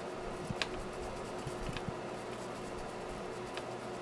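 Steady low background hum on a repair bench, with a faint steady tone and three faint clicks spread through it.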